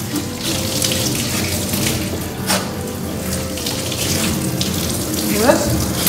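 Water running steadily as a dog is rinsed during its bath, over background music. A short rising sweep sounds about five and a half seconds in.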